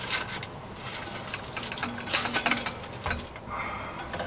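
Steel brake disc rotor being handled and slid over the cable onto an electric bike hub motor: a few short, light metallic clinks and rustles of the paper tissue it is held in.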